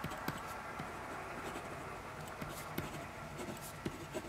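Handwriting on a sheet of paper on a wooden table: faint, irregular scratching strokes of the writing tip, with small taps as it is lifted and set down between letters.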